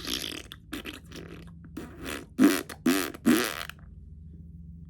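A woman making short wordless vocal sounds: about six buzzy bursts with pitch that rises and falls, the last three loudest, then stopping about four seconds in.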